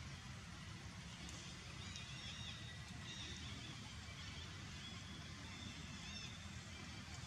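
Quiet outdoor ambience: a steady low rumble with faint, short high chirps repeating through the middle.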